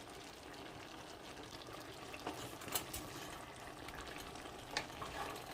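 Pot of bottle gourd and pork simmering, a faint steady hiss with a few soft ticks.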